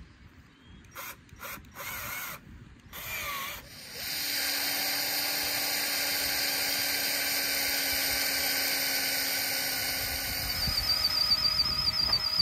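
Cordless drill with a wood bit: a few short bursts of clicking and whirring in the first seconds as the bit is tightened in the chuck, then the drill runs steadily for about six seconds boring into wood, turning louder and uneven over the last two seconds.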